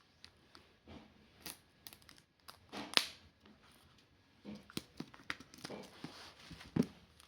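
Packaging being torn open and crinkled by hand: scattered rustles and sharp snaps, the loudest snap about three seconds in, with busier rustling in the second half.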